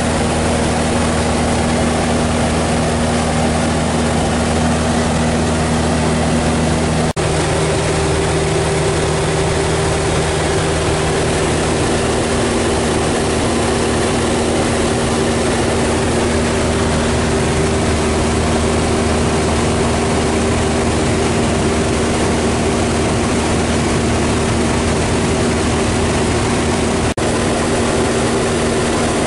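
Maule MX-7's piston engine and propeller droning steadily in cruise, heard from inside the cabin. The drone has two momentary dropouts, and after the first one, about seven seconds in, its pitch is different.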